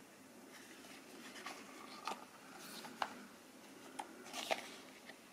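Faint rustling and soft ticks of thick matte paper as a booklet's pages are handled and turned by hand, with a brief swish of a page turning about three seconds in and again near the end.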